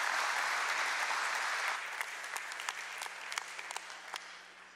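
Church congregation applauding: a full round of clapping at first that thins out to scattered claps and dies away near the end.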